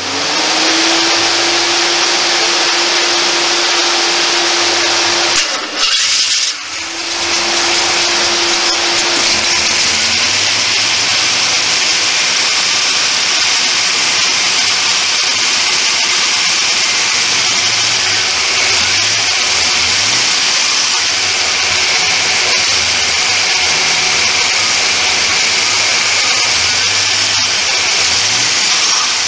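Supercharged Studebaker V8 running on its first cold start after repairs, a steady loud mechanical rush with a faint whine; the sound dips briefly about six seconds in.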